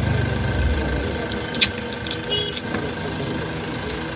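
Small metal clicks and taps of nuts being fitted onto a table fan motor's housing, one sharp click about one and a half seconds in the loudest, over a steady low mechanical hum that is heavier in the first second.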